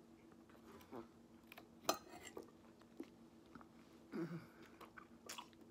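Quiet close-up chewing and biting of a mouthful of salad, with a few scattered soft crunches and mouth clicks, the sharpest about two seconds in.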